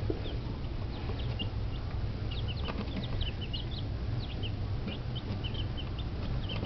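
Week-old chicks peeping: many short, high cheeps from several birds at once, scattered and overlapping, over a steady low hum.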